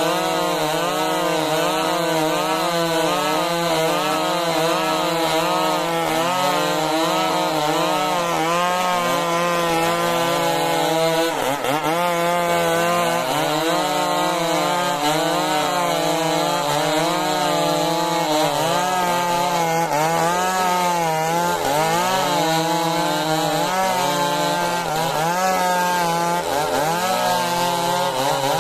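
Stihl MS 382 two-stroke chainsaw running under load as it rips lengthwise through majau timber, its engine pitch wavering up and down as the cut loads and frees it, with one brief drop about twelve seconds in.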